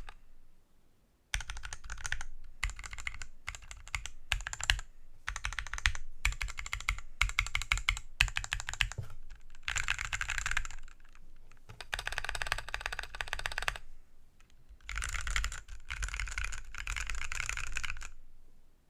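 Typing in bursts on an OLKB Planck 40% ortholinear mechanical keyboard with lubed Gateron Phantom Brown tactile switches, an aluminum case and plate, and XDA PBT keycaps. It starts after a short pause, has a brief lull near the middle and stops shortly before the end.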